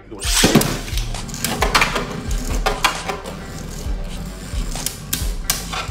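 Two Beyblade Burst spinning tops ripped from their launchers into a plastic stadium with a loud rasp about half a second in, then whirring in the bowl and clacking sharply against each other and the stadium wall again and again.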